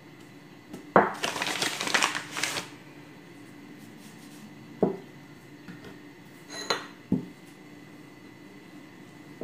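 Wooden rolling pin working dough on a floured countertop: a sharp knock about a second in, then a second or so of rolling and rubbing, and a few lighter knocks of the pin and hands on the counter later on.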